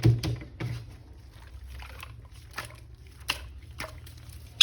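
Scattered clicks and taps of plastic being handled, as hands move from one action figure to the next, over a steady low hum.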